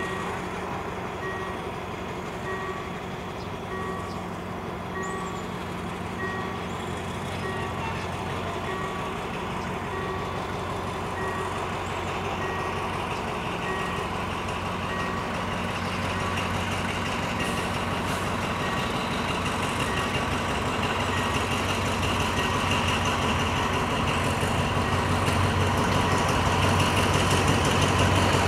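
A diesel locomotive's engine running at a steady low pitch, growing louder as it slowly approaches hauling passenger coaches. A short high beep repeats about every two-thirds of a second through the first dozen seconds, then fades out.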